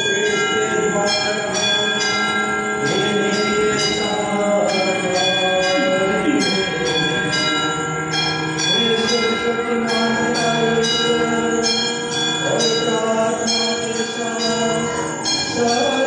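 Altar bells rung over and over during the elevation of the host and chalice at the consecration, many bell tones ringing on top of one another. Voices can be heard faintly underneath.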